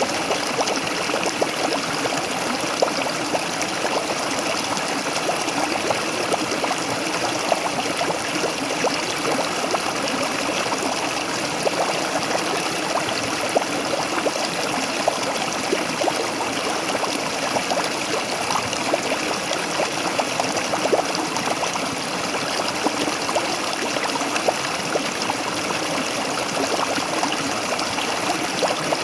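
Waterfall water splashing in a steady, continuous rush, full of small close splashes and trickles.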